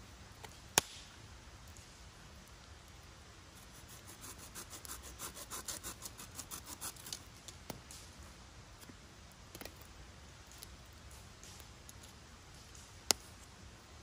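A dry dead-wood stick being handled and worked by hand, scraping and rubbing in a run of quick rasping strokes, about four a second, in the middle. A sharp click sounds shortly after the start and another near the end.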